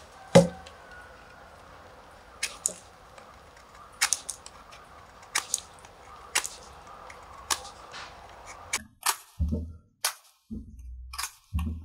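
Utility knife carving a small wooden lure blank: sharp cracks as chips split off the wood, about one every second or so, with a few dull thumps near the end.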